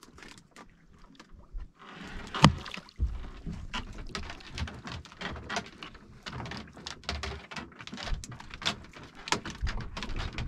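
Small boat at sea: water washing and slapping against the hull, with scattered knocks and clicks from handling the gear aboard. The loudest is a sharp knock about two and a half seconds in.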